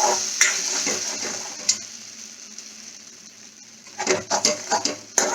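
Cashew paste sizzling in hot ghee in a pan, with a spoon knocking and scraping against the pan. The sizzle fades after about two seconds, and a run of quick knocks from stirring comes near the end.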